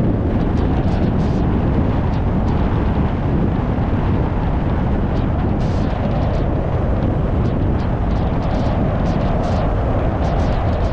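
Car driving along a rural road: a steady, heavy low rumble of tyres and running gear with wind buffeting the microphone, and short sharp ticks scattered throughout.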